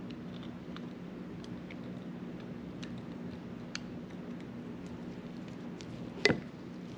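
Small, scattered clicks and handling sounds from fiddling with fishing line on a Shimano Chronarch baitcasting reel, over a steady low hum. One sharper, louder click comes about six seconds in.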